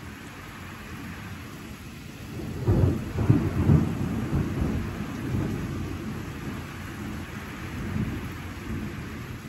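Steady rain, with a thunderclap about two and a half seconds in. It is loudest over the next second or so, then rumbles away slowly under the rain.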